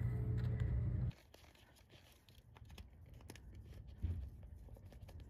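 Faint clicks, scrapes and rustling of a screwdriver and gloved hands working at the new AC compressor and its rubber port caps, with a thump about four seconds in. A steady low hum for the first second cuts off suddenly.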